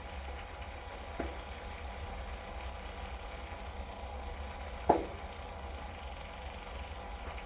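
Steady low hum and hiss around a gas water heater, broken by two short sharp pops: a faint one about a second in and a louder one near five seconds.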